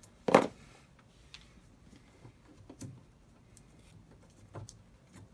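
Faint clicks and taps of hands working electrical wires in an RV wall outlet box, with one short loud burst about a third of a second in.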